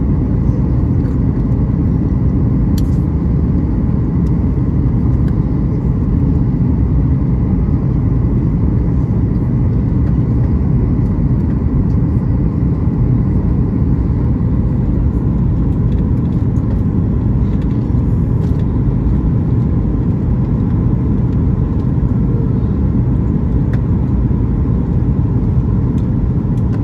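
Jet airliner cabin noise in flight: the steady roar of the engines and the air rushing past the fuselage, heard from a window seat over the wing, with a faint steady whine above it.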